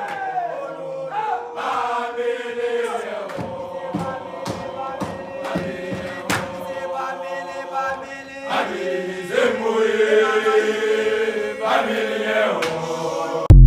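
A group of young male voices singing a gwijo chant a cappella, one note held long through the middle, with sharp hand claps on the beat. A loud electronic outro sting cuts in at the very end.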